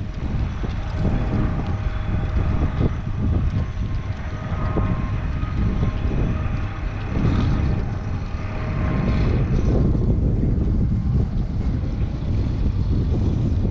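Wind buffeting the microphone in a heavy, fluttering rumble, with a faint steady mechanical hum under it that stops about nine or ten seconds in.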